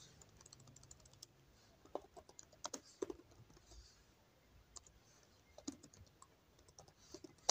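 Faint typing on a computer keyboard: irregular keystrokes in small clusters with short pauses between them.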